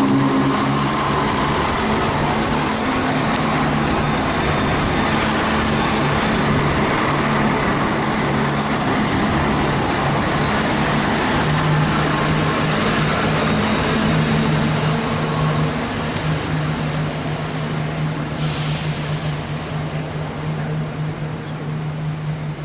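Diesel multiple-unit train running past close by, a steady engine drone over rumbling wheel noise that fades away over the last several seconds.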